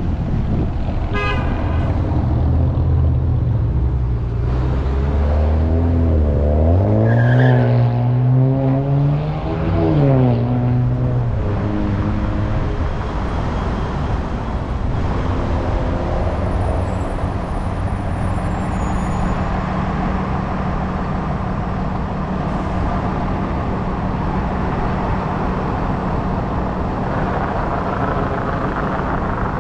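Car and road noise in city traffic, with a short high toot like a horn about a second in. An engine note rises in pitch for about three seconds, then drops away near the ten-second mark. It settles into a steady low hum while the car waits at a red light.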